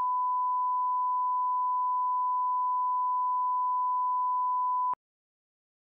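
1 kHz line-up reference tone, the pure test tone that goes with colour bars: one steady, unbroken beep lasting about five seconds that cuts off suddenly.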